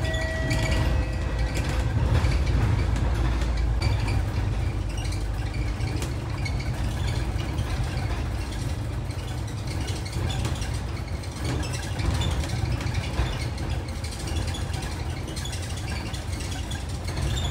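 City bus engine running with a steady low rumble and rattles, heard from inside the bus. A short beep sounds right at the start.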